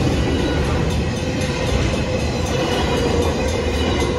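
BNSF double-stack intermodal freight train passing over a grade crossing: the steady running noise of its wheels on the rails as the container and trailer cars roll by.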